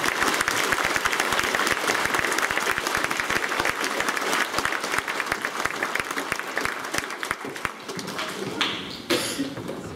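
A hall full of children applauding: dense clapping that thins out and fades toward the end.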